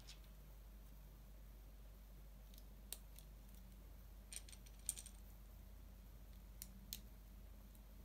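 Small plastic LEGO pieces clicking as they are picked from the pile and pressed together: a few sharp clicks, single and in pairs, the loudest about five seconds in, over near silence.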